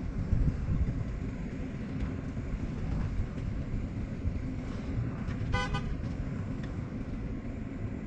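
A steady low rumble with a single short horn beep about five and a half seconds in.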